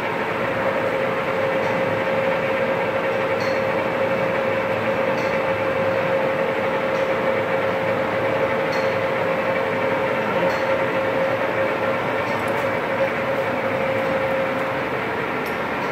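A 1994 Kingston hollow spindle engine lathe running under power: a steady mechanical whir with a constant hum tone and a faint light tick about every second and a half to two seconds.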